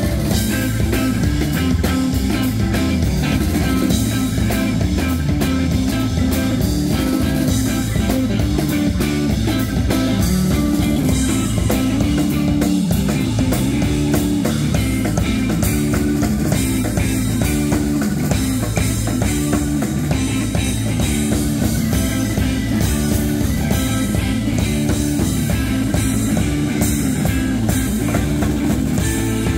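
Live psychedelic rock band playing loud through the PA: distorted electric guitar, organ and a full drum kit, with a strong, steady bass line underneath.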